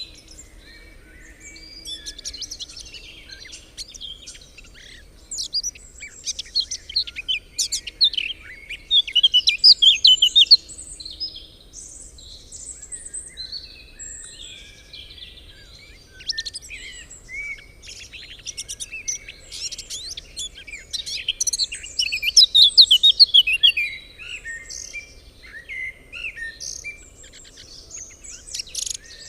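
Several songbirds chirping and singing at once, a dense overlapping chorus of quick high notes and trills that swells louder in places.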